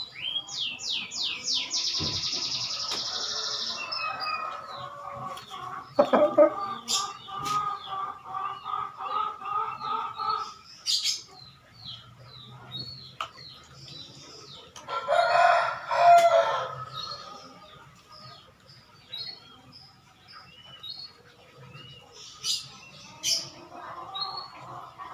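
Chickens calling while small birds chirp repeatedly, with a fast bird trill near the start. There is a long call from about four to ten seconds in, and the loudest call comes at about fifteen seconds.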